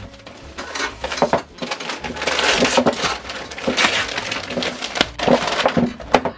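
Crinkling and tearing of gift wrapping and plastic packaging as presents are unwrapped by hand, in irregular bursts with sharp crackles.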